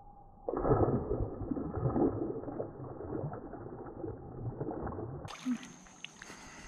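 A released bass hits shallow water with a splash about half a second in, then thrashes and splashes in the shallows for several seconds before the water settles.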